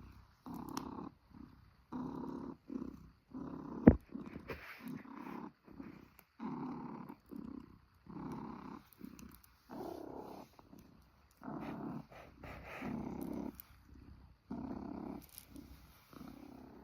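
Domestic cat purring in pulses that come and go with its breathing, about one a second. A single sharp click about four seconds in is the loudest moment.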